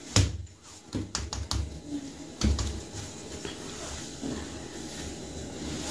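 A few light, irregular hand slaps and taps, clustered in the first second and a half with one more about two and a half seconds in, then only a low steady background.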